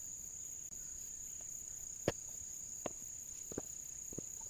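Insects shrilling in a steady, high-pitched drone with a fine pulsing shimmer, with a few faint knocks about halfway through.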